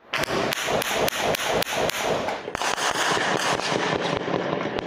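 Gunfire in an exchange of shots: many shots in quick succession, some in rapid bursts, recorded on a mobile phone.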